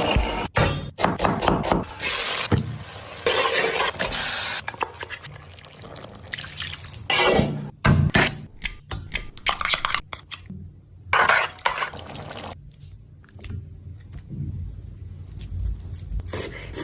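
Kitchen cooking sounds: utensils clinking against pots and pans, with liquid being poured and stirred, in short bursts that start and stop abruptly.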